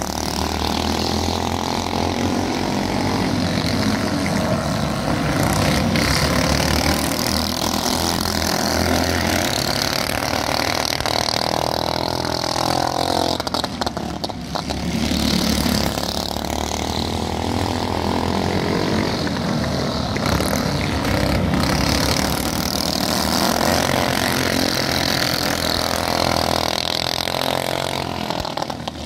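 Several 390cc single-cylinder four-stroke racing kart engines at full race pace on a dirt oval, their pitch rising and falling as the pack passes and accelerates out of the turns, with a brief dip about halfway.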